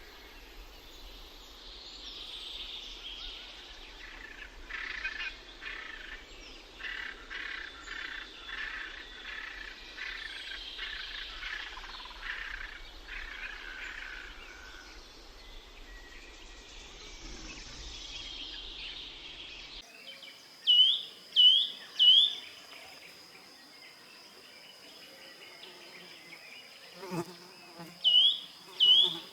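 Birds chirping and twittering over a natural outdoor background. About two-thirds of the way through the sound changes abruptly: a steady high insect buzz sets in, and a bird gives two sets of three short, loud calls.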